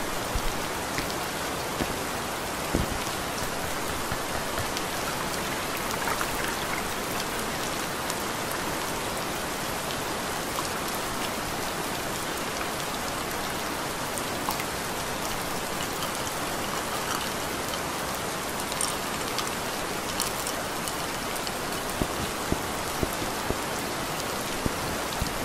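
Steady rain: an even hiss with scattered sharper drop ticks.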